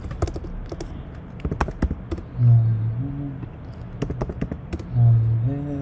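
Typing on a computer keyboard: a run of uneven key clicks as a variable name is entered into a line of Java code. A man's voice hums briefly twice, once in the middle and once near the end.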